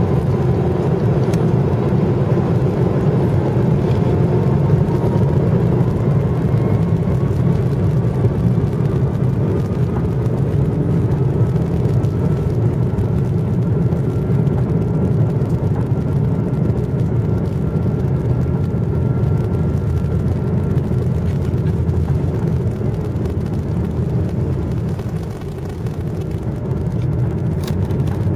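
Jet airliner's engines heard from inside the passenger cabin: a loud, steady low rumble, with a faint whine that rises in pitch over the first dozen seconds.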